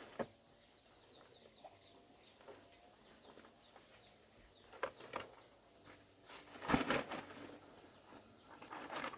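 Steady high-pitched chorus of insects such as crickets, with a few short knocks and rustles of handling, the loudest about seven seconds in.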